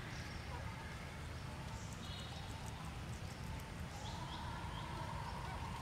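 Outdoor ambience of birds calling with short high chirps over a steady low rumble; a steady tone comes in about four seconds in and holds.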